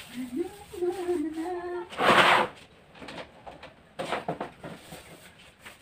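A woman singing a long held note that slides up and then stays steady. About two seconds in comes a short, loud, breathy rush, followed by a few soft knocks.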